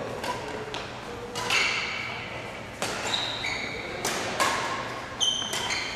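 Badminton rackets hitting a shuttlecock in a doubles rally: about half a dozen sharp hits that ring on in a large hall. Between hits, sneakers squeak briefly on the court floor.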